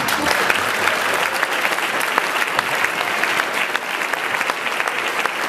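Audience applauding: many people clapping together, starting abruptly and going on steadily.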